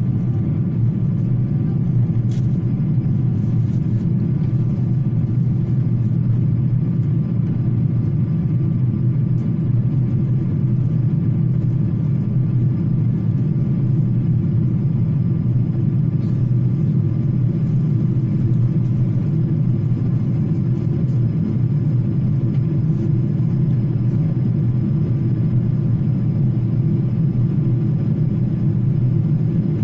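Steady low rumble of a vehicle, unchanging throughout, with a faint steady hum above it.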